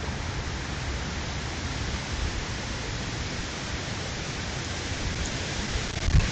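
Steady, even outdoor background hiss with no distinct animal calls; a single low thump near the end.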